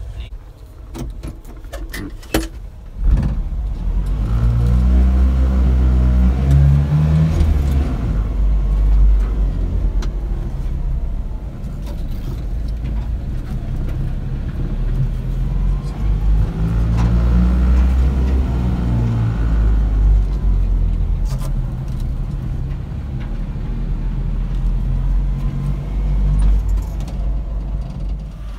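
Keys jangling and clicking, then about three seconds in a Japanese kei mini truck's small engine gets loud and runs on. Its revs rise and fall in two long swells.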